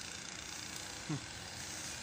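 Steady outdoor background hiss, with one short sound that drops sharply in pitch about a second in.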